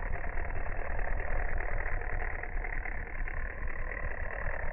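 Clockwork mechanism of a wind-up walking toy running, a steady, dull mechanical rumble with nothing bright or high in it.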